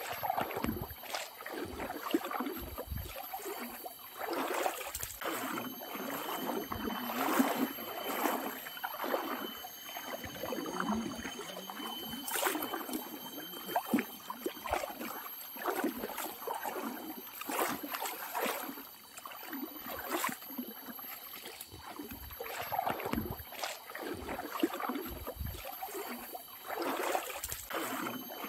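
Footsteps wading through a shallow river, water splashing and sloshing around the legs in irregular surges every second or two.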